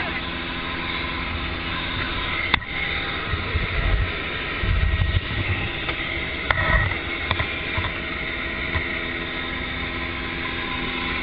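Helicopter engine and rotors running steadily, heard from inside the cabin with the door open, with wind gusting on the microphone. There are a few sharp clicks, the clearest about two and a half seconds in.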